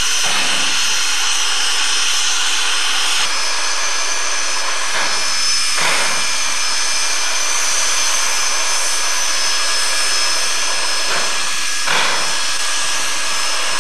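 Steady loud hiss of steam escaping from a Shay steam locomotive's pump fittings. After a cut at about three seconds it gives way to a steady rushing noise with a couple of short knocks.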